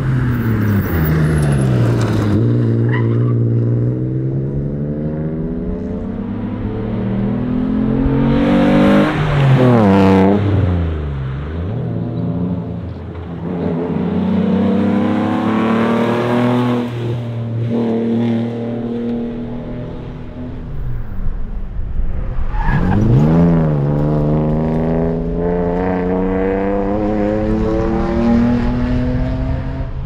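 1999 Alfa Romeo GTV rally car's engine running hard, its pitch climbing steadily under acceleration and falling sharply a few times, most sharply about nine seconds in and again about twenty-three seconds in.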